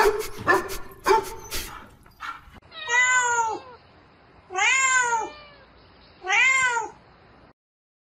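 Kitten meowing three times, each drawn-out meow rising then falling in pitch, spaced about a second and a half apart. They are preceded in the first two seconds by a few sharp clicks and brief squeaks.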